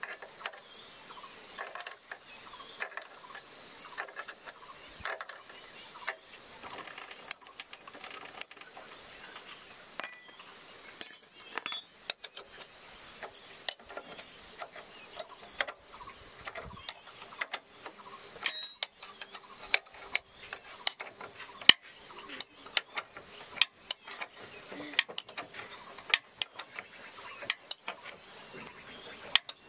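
Irregular sharp clicks and knocks of something mechanical, several a second at times, with one louder knock a little past the middle, over a faint steady high tone.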